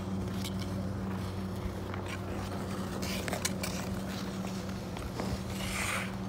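Ice skate blades scraping and gliding over rink ice, with a few short scrapes and clicks and a longer hissing scrape near the end, over a steady low hum.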